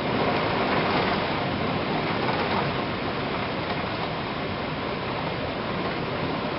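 Heavy thunderstorm rain pouring down, a steady dense hiss with no break.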